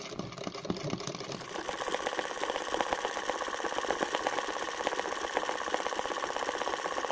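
Domestic sewing machine stitching machine embroidery, its needle running in rapid, even strokes; it starts up about a second in and then runs at a steady speed.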